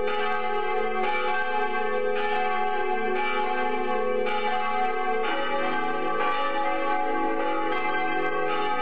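Bells ringing, the set of pitches changing about once a second, with a light strike at each change and a lower tone coming in about five seconds in.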